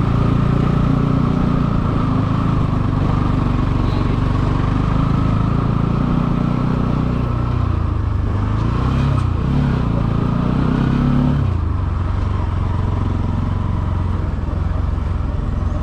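Motorcycle engine running while riding, with the engine note rising and falling a few times about two-thirds of the way through, then settling lower.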